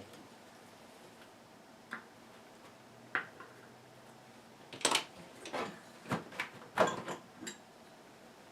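Scattered sharp clicks and knocks of parts being handled while the speaker is taken apart. There is a single click about 2 s in and another about 3 s in, then a quicker run of knocks from about 5 to 7.5 s in.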